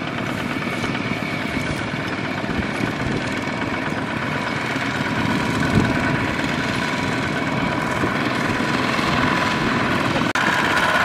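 Several two-wheel walking tractors (power tillers) with single-cylinder diesel engines running together as they pull loaded rice trailers, a steady rapid chugging that grows a little louder near the end.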